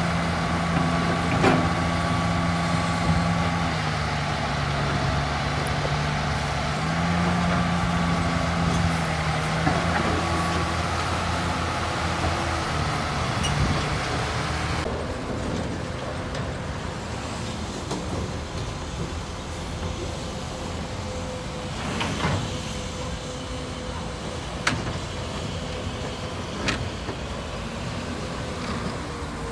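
Caterpillar hydraulic excavator's diesel engine running under load as it drags a steel dredging barge, its pitch dropping and rising a few seconds in as the load changes. In the second half the engine is fainter, and a few sharp knocks sound.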